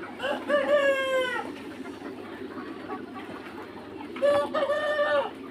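Young Mía cockerel crowing twice. Each crow is about a second long and sags slightly in pitch at its end, the second starting about four seconds in.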